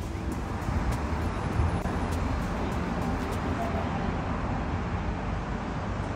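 Steady low rumble of a Sydney Trains double-deck electric train at a station platform.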